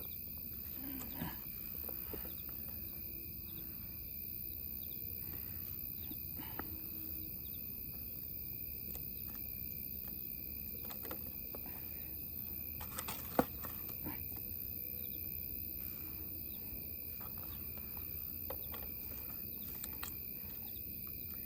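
Night insects such as crickets chirring steadily at a high pitch, with scattered faint clicks and knocks and one sharp knock a little past the middle.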